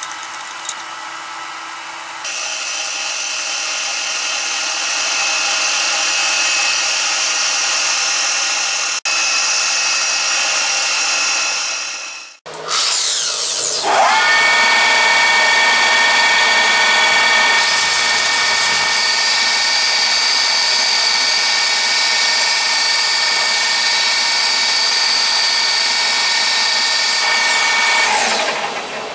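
Handheld burnishing/polishing machine with a red abrasive drum wheel running against an aluminium tube in a lathe: a steady high motor whine with a gritty rasp. It cuts out abruptly about halfway, spins up again with a rising whine, and winds down with a falling whine near the end.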